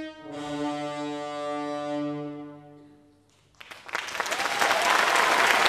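The music for a stage ballet ends on one long held chord that fades away. After a moment of near silence, the audience breaks into applause that swells quickly and goes on.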